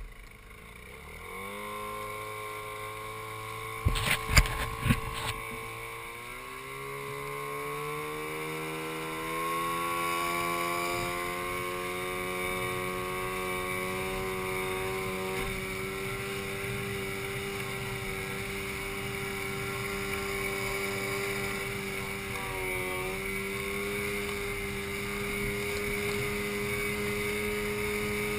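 Outboard motor of an inflatable boat speeding up over the first several seconds, its pitch climbing, then running steadily at cruising speed, with a brief dip in revs about three-quarters of the way through. A few loud knocks come about four to five seconds in.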